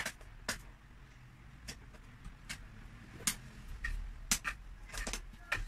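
Cardboard packaging being handled and knocked about, boxes and cardboard tubes, giving about nine sharp taps and clicks at irregular intervals.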